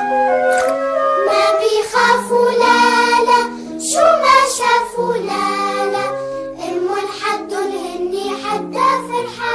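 Children's song music: children's voices singing a melody over instrumental backing.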